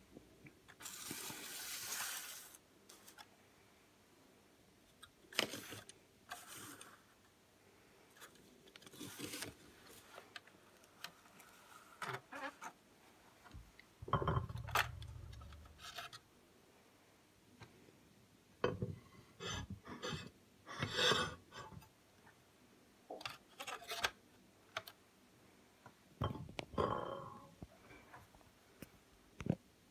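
Quiet, scattered handling sounds of a plastic scale model being moved and touched on a wooden tabletop: scrapes, rubs and light clicks, with a duller thump about fourteen seconds in.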